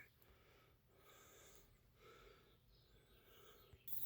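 Near silence, with only faint soft hisses; a faint steady background hiss comes in near the end.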